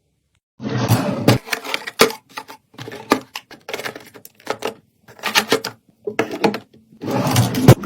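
Food containers and packaging being handled and set down while a fridge is restocked: an irregular run of clunks, clicks and rustles that starts about half a second in.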